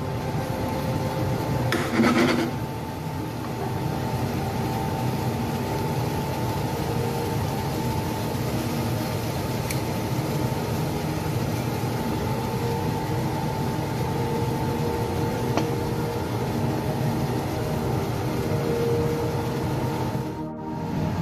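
Steady mechanical hum and hiss of kitchen background noise, with a single scrape of a spatula against the frying pan about two seconds in.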